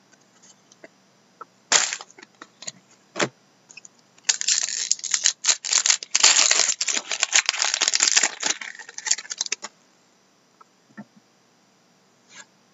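An Upper Deck Artifacts hockey card pack wrapper crinkling and tearing as it is opened, a dense crackling rustle of about five seconds. It is preceded by two short sharp snaps of cards being handled.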